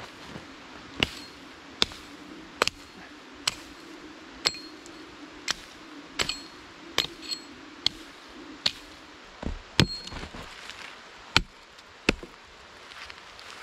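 A steel blade chopping wood: about fifteen sharp strikes, roughly one a second, some with a short metallic ring.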